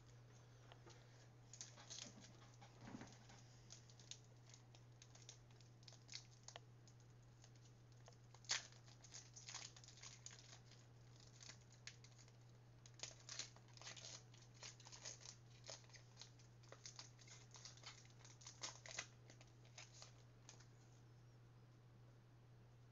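Faint crinkling and tearing of trading-card pack wrappers and cards being handled: scattered light crackles and clicks, busiest in two stretches in the middle.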